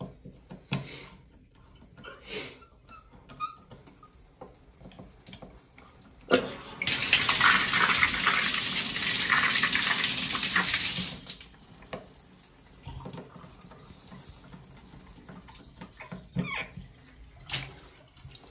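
Water spraying hard out of an open Moen shower valve body with its cartridge removed, as a service stop is opened with a screwdriver. The spray runs steadily for about four seconds, then cuts off suddenly. A sharp click comes just before the water starts. The flow shows that water is reaching the valve through the stops.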